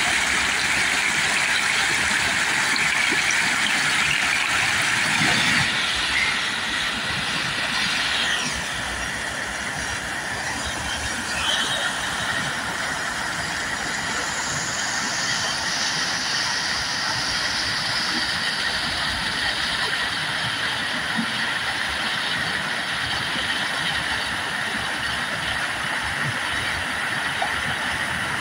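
Whitewater rushing steadily through a whitewater-park wave, a little quieter from about eight seconds in.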